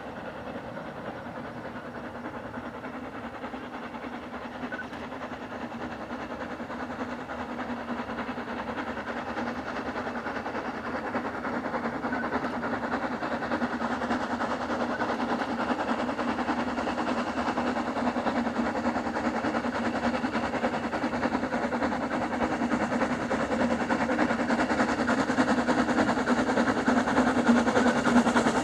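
Southern Railway Schools-class 4-4-0 No. 30925, a three-cylinder steam locomotive, working a passenger train under steam. The sound of its exhaust and running gear grows steadily louder as it approaches.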